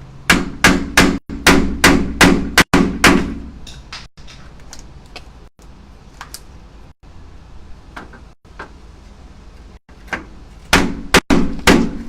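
A hammer striking repeatedly: a quick run of about eight blows, roughly three a second, then a pause with light ticks, then four more blows near the end.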